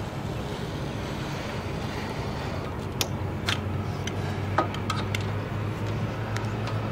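Utility knife cutting out a dry-rotted rubber window gasket and the gasket being pulled from a metal window frame: a handful of short sharp clicks and snaps, most of them in the middle of the stretch, over a steady low hum.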